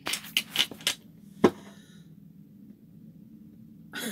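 Scrabble tiles clicking against each other and on their rack, a quick run of small clicks, then one sharp knock on the wooden table about a second and a half in.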